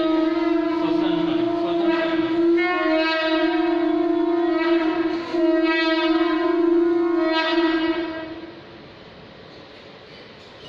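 A horn-like wind instrument sounds one long note at a single steady pitch. It grows brighter after about two and a half seconds, breaks off briefly about five seconds in, resumes, and stops about eight and a half seconds in.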